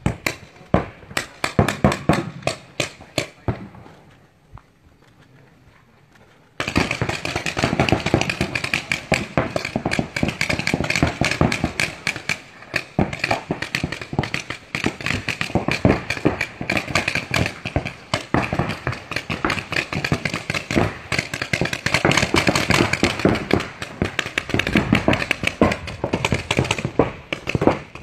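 Paintball markers firing: a string of separate sharp pops in the first few seconds, a short lull, then from about six seconds in a dense, rapid stream of shots from several markers that keeps on without a break.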